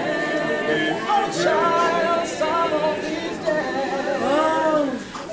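A group of voices singing a gospel song unaccompanied, with sustained notes that rise and fall.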